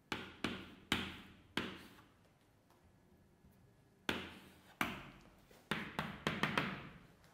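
Chalk tapping against a blackboard as maths symbols are written: a few sharp taps in the first two seconds, a pause, then a quicker cluster of taps from about four seconds in, each ringing briefly in the room.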